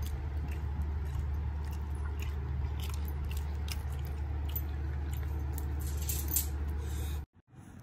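Fingers mixing and squeezing biryani rice on a banana leaf make soft, irregular small clicks over a steady low hum. The hum cuts off abruptly near the end.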